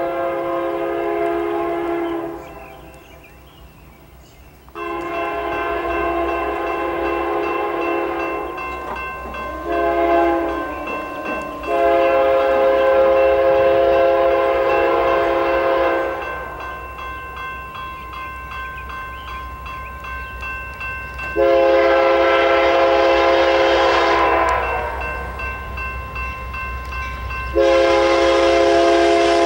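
Air horn of a BNSF GE C44-9W (Dash 9) locomotive sounding the grade-crossing signal: a chord of several notes blown long, long, short, long, then two more long blasts. Low locomotive rumble underneath.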